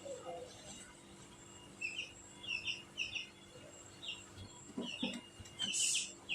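Small birds chirping in short, repeated calls, with a brief hiss about six seconds in.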